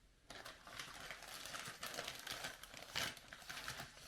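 Packaging crinkling and rustling as it is handled and opened, with irregular small clicks and a louder crackle about three seconds in.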